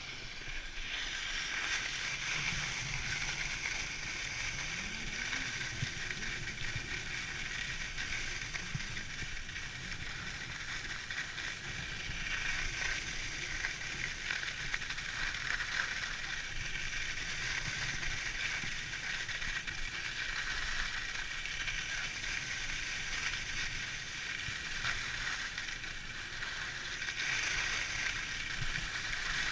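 Skis sliding and scraping over packed snow on a downhill run: a steady hiss that swells and eases, over a low rumble of wind on the microphone.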